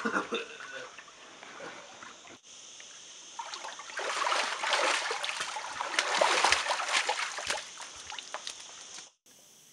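Swimming-pool water splashing and sloshing as people thrash about in the shallows. The splashing grows loud about four seconds in and cuts off suddenly near the end.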